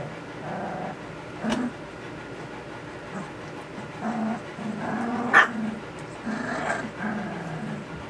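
Saint Bernard puppies, just under three weeks old, grumbling and growling in short bursts as they play-fight, with two sharp little barks about a second and a half and five and a half seconds in. These are puppies just finding their voices, with their first real barks.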